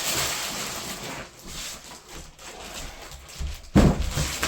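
Packaging being pulled off and handled, a rustling hiss for the first second or so, then quieter scrabbling and a sharp thump about four seconds in.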